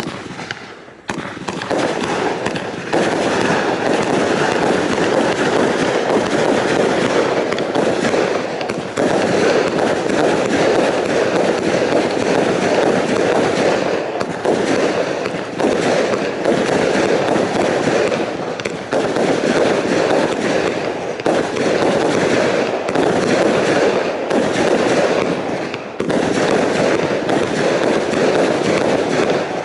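Kimbolton Fanfare Royale fan cake firing shot after shot in fast, crowded succession, a near-continuous crackling volley that starts suddenly, thickens within the first few seconds and dips briefly a few times.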